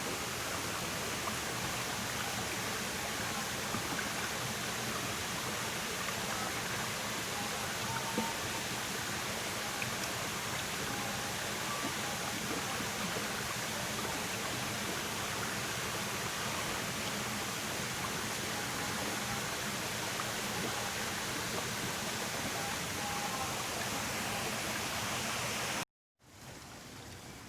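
Water flowing steadily, a constant rushing. About a second and a half before the end it cuts out abruptly and comes back quieter.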